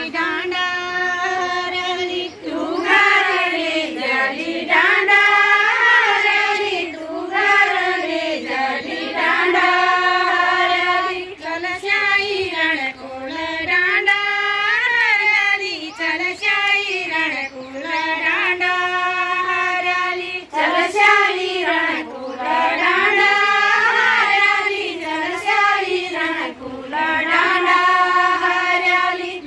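A group of women singing a Garhwali chanchari folk song together, unaccompanied, in repeating melodic phrases with short breaks between them.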